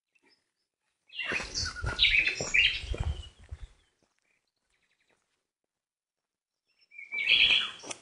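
Small birds chirping in two short bursts, one about a second in and lasting a couple of seconds, another near the end, with low rumbling noise beneath each burst; near silence between them.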